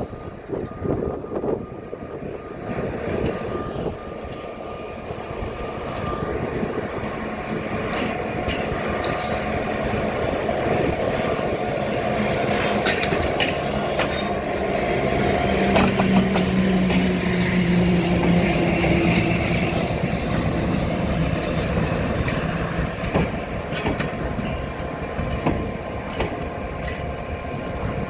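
A train passing close by: a continuous rumble of wheels on rail, sharp clicks as the wheels cross rail joints, and wheel squeal. A low steady tone sits in the middle, and the train is loudest about two-thirds of the way through.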